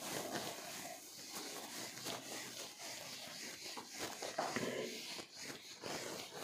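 Handheld duster rubbing marker off a whiteboard in a run of irregular wiping strokes.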